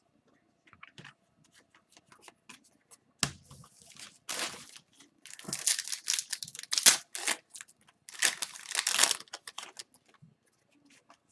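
A hockey card pack's wrapper being torn open and crinkled, with cards being handled; faint handling clicks at first, then a sharp rip about three seconds in followed by several bursts of rustling.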